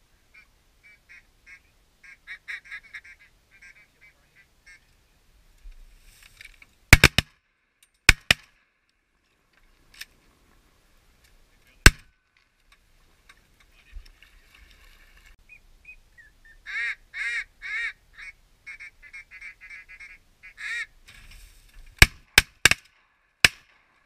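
Rapid runs of duck quacking, in two stretches, broken by loud shotgun shots: a quick volley of several shots about seven to eight seconds in, a single shot near twelve seconds, and another volley of three or four shots near the end.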